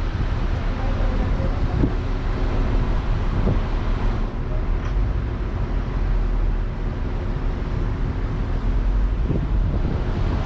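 Car running, a steady low rumble with wind noise on the microphone.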